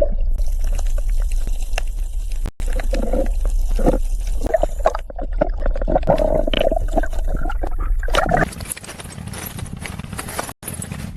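Water sloshing and splashing in uneven spurts; about eight and a half seconds in it gives way to a quieter, steady noise.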